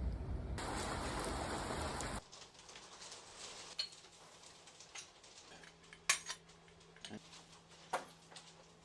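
A power sander running steadily for about two seconds and cutting off abruptly, followed by scattered light knocks and clinks, like wood and tools being handled.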